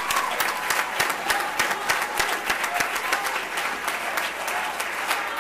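Audience applauding: a dense, even round of many hands clapping.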